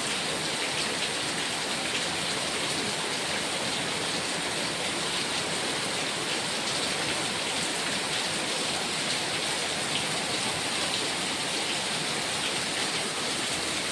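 Steady heavy rain, with faint patters of drops landing on a hard surface.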